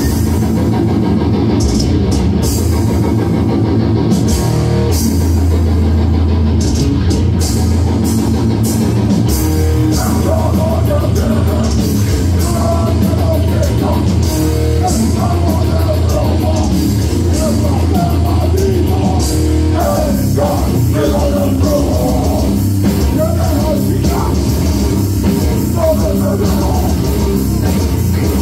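Death-grind band playing live and loud: distorted guitars, bass and drum kit, with shouted vocals over them.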